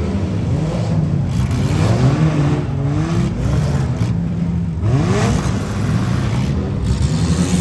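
Demolition derby car's engine heard from inside the car, revving hard and easing off in turn, its pitch climbing sharply about two and a half seconds in and again about five seconds in.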